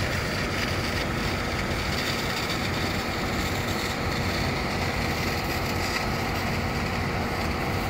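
Fire engines' diesel engines running steadily at the fire scene, a continuous drone with a hiss over it.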